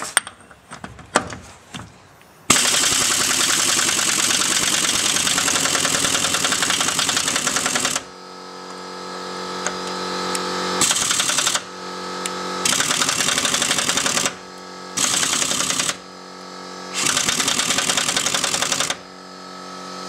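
Impact wrench (rattle gun) hammering on a seized, rusted VW Beetle rear axle nut without turning it: a long burst of about five seconds, then four shorter bursts. A steady hum fills the gaps between them.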